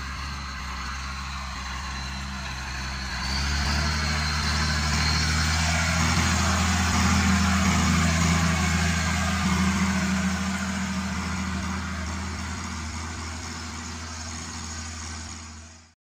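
Fiat Agri 130-90 Turbo DT tractor's six-cylinder turbo diesel engine running steadily under load while pulling a mounted plough. It gets louder about three seconds in as the tractor comes close, then eases off and fades out at the very end.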